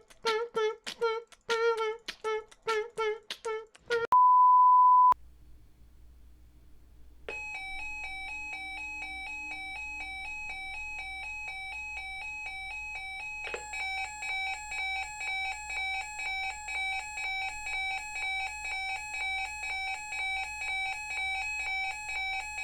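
Weather radio alert alarms: a steady electronic multi-tone alarm starts about seven seconds in, and a second, regularly pulsing alarm joins it around halfway through. Before that comes a run of short warbling electronic notes and a loud steady beep lasting about a second.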